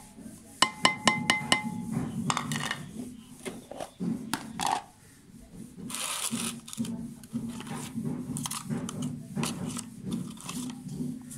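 A china plate clinks sharply against the rim of a clay kunda bowl, about six quick ringing taps, as it is knocked to empty chopped garlic and chillies into the bowl. Softer scattered knocks and rustles follow.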